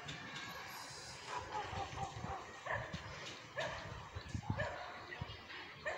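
A dog barking several times, about a second apart.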